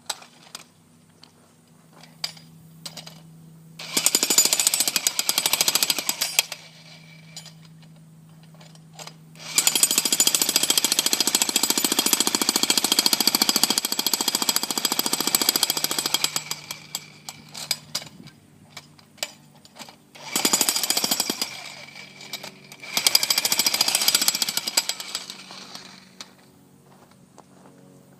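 Jackhammer chiselling into concrete in four bursts: two short, one about seven seconds long, then a final short run. Between bursts a low steady hum continues with scattered knocks.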